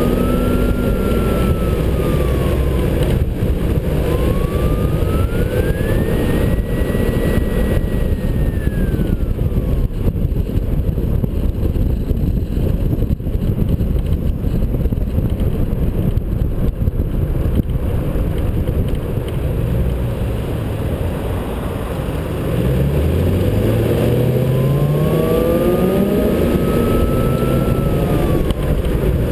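4WD driving on city streets, heard from a camera mounted on the outside of the vehicle: a steady, loud rumble of road and wind noise with the engine underneath. About two-thirds of the way through, the engine speeds up, its pitch rising, and a fainter whine rises and falls in pitch several times.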